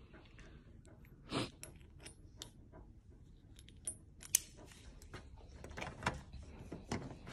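Metal clinks and jingles of a leash's steel snap hook being clipped onto a dog's collar, a few sharp clicks spread out. Near the end, a doorknob clicks as it is turned.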